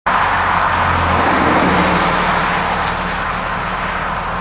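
Highway traffic going by close at hand: the steady tyre and engine noise of cars and a truck, a little louder in the first two seconds and easing off after about three.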